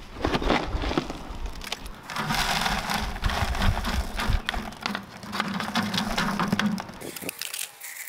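A trowel scraping and scooping lumpy, partly hardened Portland cement in a plastic tub and tipping it onto a wire-rack screen, a gritty scraping with many small knocks as chunks land on the wire.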